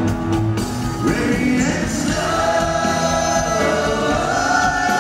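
Live rock band with electric guitars and drums, recorded from the audience. From about a second in, the lead singer and backing singers hold long notes in harmony.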